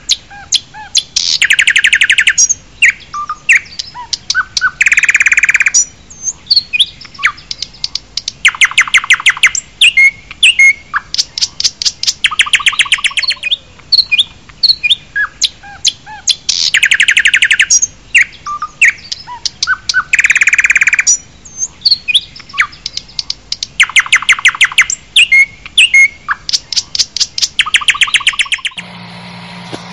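Birdsong with many rapid chirps and loud, fast trills, a recording that repeats itself after about fifteen seconds. Near the end it cuts suddenly to a steady low engine idle.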